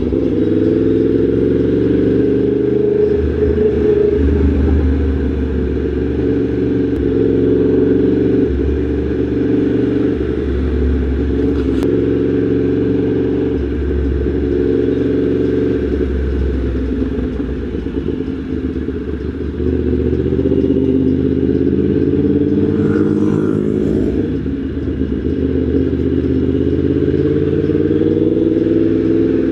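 Yamaha MT-10 SP motorcycle's crossplane inline-four engine running on the move, its note rising and falling with the throttle.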